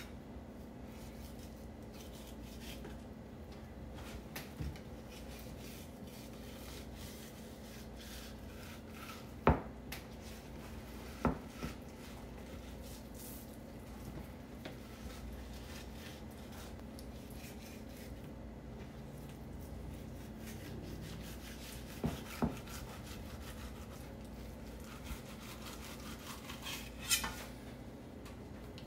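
Chef's knife knocking and scraping on a bamboo cutting board while a mahi-mahi fillet is trimmed, with a few sharp taps, including a quick pair about two-thirds of the way through, over a faint steady hum.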